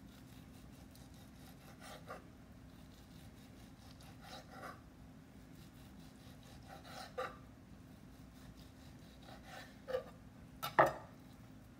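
Quiet strokes of a serrated knife sawing through sliced cooked tri-tip beef on a wooden cutting board, a short scrape every two or three seconds. Near the end the blade knocks sharply on the board, the loudest sound.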